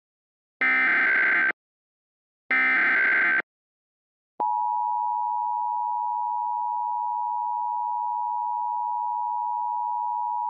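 Emergency Alert System tones: the last two bursts of the SAME digital header, each about a second of buzzy data noise, then about four seconds in the steady two-tone EAS attention signal begins and holds. The header and tone introduce a civil emergency message.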